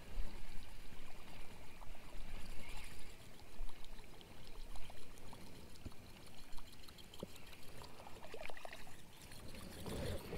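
Water lapping and trickling around a kayak, with a low wind rumble on the microphone and scattered light clicks.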